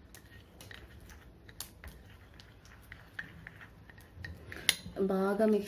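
A spoon stirring pepper powder into honey in a small bowl: faint, irregular light taps and scrapes of the spoon. A woman starts speaking near the end.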